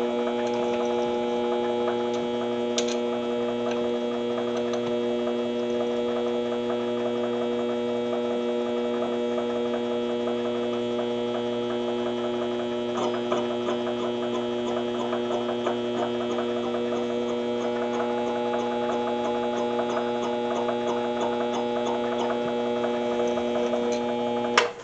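Mini lathe running steadily, its motor giving a hum of several pitches, with faint regular ticking from about halfway, then switched off just before the end. The lathe is spinning a tack-welded bolt so its wobble can be found and marked.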